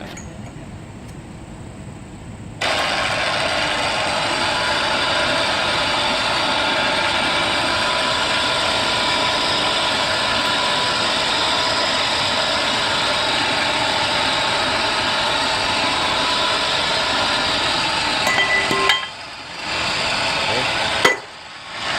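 Electric pipe threading machine switched on about three seconds in and running steadily, its motor turning the pipe as it is worked. It stops briefly twice near the end.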